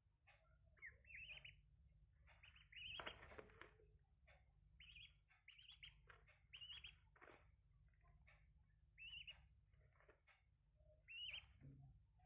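Ducklings giving faint, short high peeps in scattered clusters, with a brief rustle about three seconds in.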